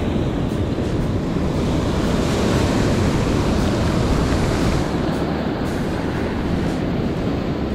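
Ocean surf breaking and washing up the beach, with wind rumbling on the microphone. The wash swells louder about two seconds in and eases back about five seconds in.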